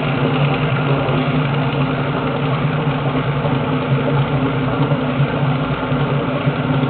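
Lloveras chocolate-processing machine running, a steady mechanical drone with a constant low hum.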